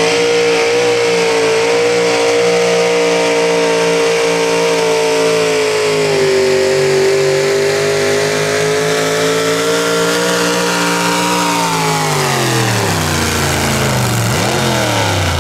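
V8 engine of a hot rod pulling tractor at full throttle during a pull, holding high revs for about twelve seconds with a slight sag midway. Near the end the revs fall away steadily.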